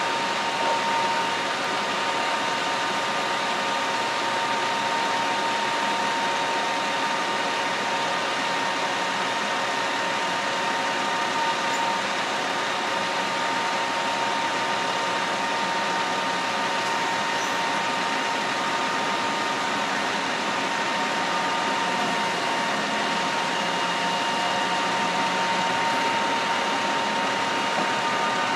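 Steady drone of running machinery with a faint, even whine over it.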